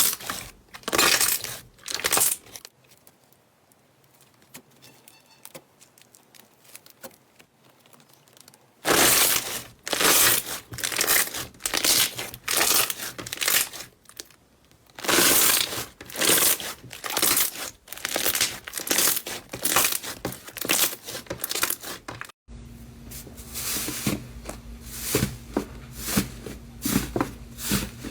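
Slime being squeezed and stretched by hand, making repeated crackling, crinkling bursts, about one a second at the densest. After about 22 seconds a different slime clip begins, with quicker, smaller crackles over a faint steady hum.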